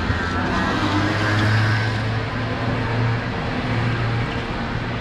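A road vehicle's engine running with a steady low hum that swells briefly about a second and a half in.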